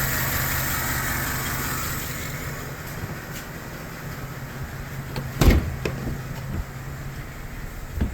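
2008 GMC Sierra's 5.3-litre V8 idling with a misfire on cylinder 1, which the owner puts down to collapsed valve lifters keeping that cylinder's valves shut; the engine sound grows quieter over the first few seconds. A loud thump comes about five and a half seconds in, with a few lighter clicks after it.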